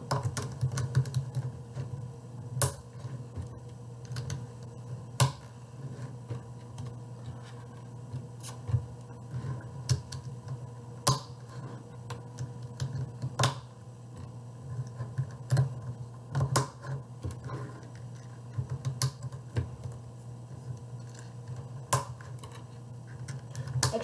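Sharp, irregular plastic clicks and taps as coloured tiles are pressed onto the black pieces of a DIY Rubik's cube kit, coming every second or two over a steady low hum.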